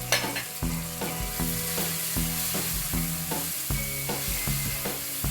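Onion and tomato masala sizzling in hot oil in a pan, stirred as dry spice powders are mixed in, over a steady hiss with repeated short strokes.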